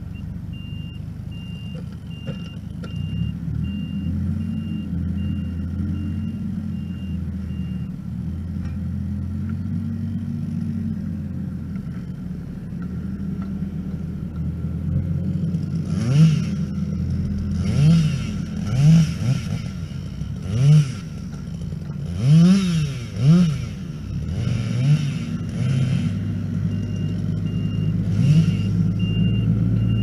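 Kubota R430 articulated wheel loader's turbo-diesel engine running under load, then, in the second half, revving up and dropping back in about eight quick, sharp surges. A faint repeating beep sounds during the first several seconds and again near the end.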